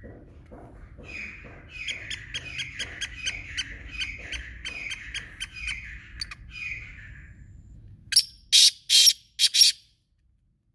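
Black francolin calling: a run of rapid, chirping notes at about three a second for several seconds, then four loud, harsh call notes near the end before it stops.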